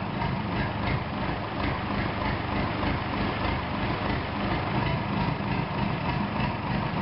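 Bedford four-cylinder diesel engine running steadily, an even, rapid firing beat.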